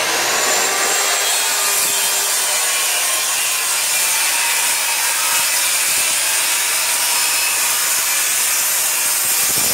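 Electric saw cutting through wooden brace lumber: the motor spins up and then runs loud and steady through one long continuous cut, stopping abruptly near the end.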